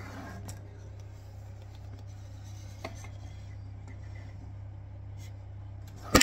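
Handling noise from a camera being moved about: a few small clicks and knocks over a steady low hum, ending in a loud knock and rubbing as it presses against a cabinet panel.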